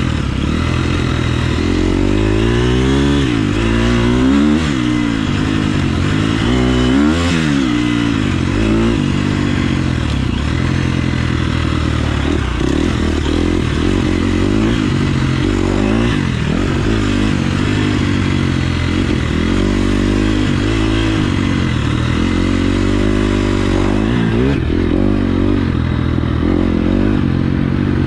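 KTM 350 SX-F motocross bike's single-cylinder four-stroke engine, revved up and eased off over and over while being ridden, its pitch rising and falling every second or two.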